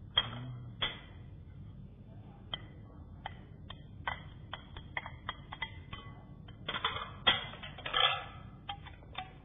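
Chopsticks and a plate tapping and clinking against a glass mixing bowl as shrimp and meat are put into it. A scatter of light clicks, busier and louder for a moment near the end.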